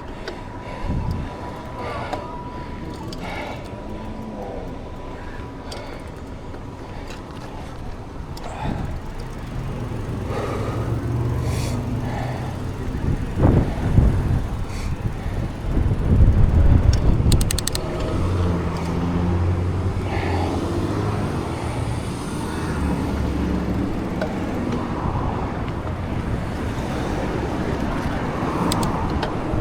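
Road traffic: motor vehicle engines running and passing close by, with a few louder bumps about halfway through.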